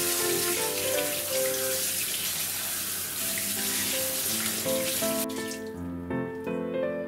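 Kitchen faucet spraying water into a stainless-steel sink as hands rinse blanched beef tendon in a wire-mesh colander. The water cuts off abruptly about five seconds in. Background music plays throughout.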